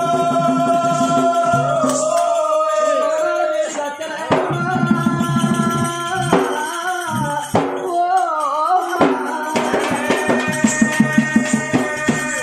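Oggu Katha folk singing: voices holding long notes over jingling percussion and a drum, with a run of quick drum strokes near the end.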